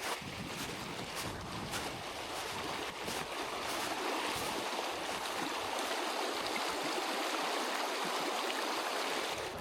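Footsteps in snow, about two steps a second, over the steady rush of a mountain stream. The steps stop about four seconds in, leaving the stream alone.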